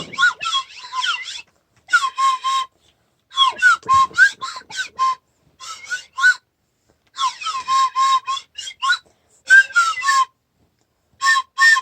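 Runs of short, high squeaks, each bending in pitch, several a second, in groups with short gaps between them.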